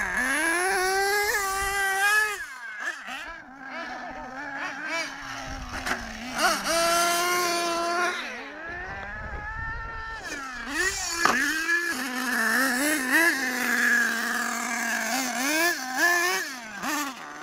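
Small two-stroke nitro engines of radio-controlled monster trucks revving, their high pitch rising and falling over and over with the throttle.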